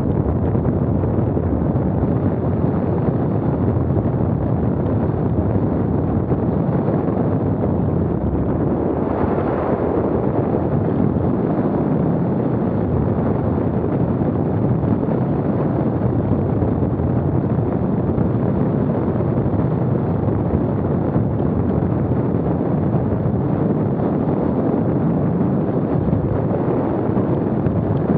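Steady wind buffeting the microphone: a dense, low rushing noise that swells briefly about nine seconds in.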